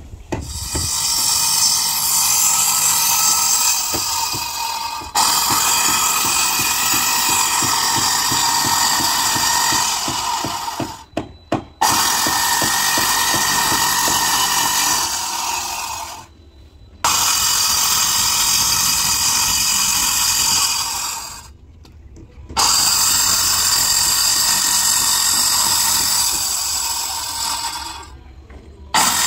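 Handheld electric power tool working a wooden boat plank, its motor whining under load in stretches of several seconds and dropping off briefly four times before starting again.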